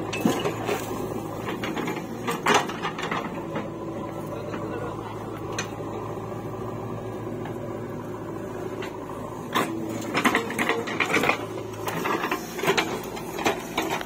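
JCB 3DX backhoe loader's diesel engine running at a steady pitch while it works. Sharp metallic clanks and knocks come from the bucket, the arm linkage and the steel tractor trolley: two single knocks early, then a run of clanks in the second half.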